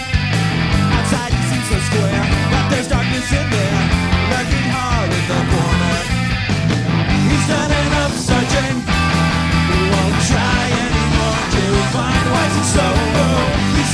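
Live rock band playing loud: electric guitars, bass guitar and a drum kit.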